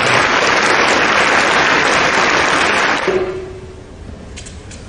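Tennis crowd applauding after a point is won, dying away about three seconds in.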